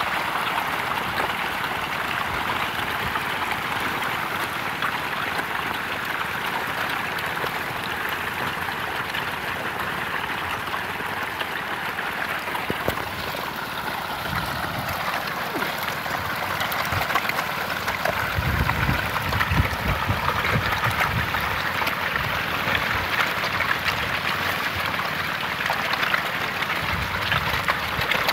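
A dense mass of catfish thrashing and splashing at the pond surface in a feeding frenzy: a steady, continuous churning of water, like heavy rain or a stream. About two-thirds of the way in there is a brief low rumble.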